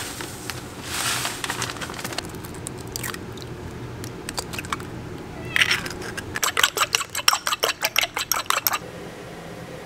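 Panko breadcrumbs poured into a glass dish with a soft rustle, then a few light knocks. Then a fork whisks an egg in a ceramic bowl: rapid clicking of fork on bowl, about eight strokes a second, lasting two to three seconds and stopping about a second before the end.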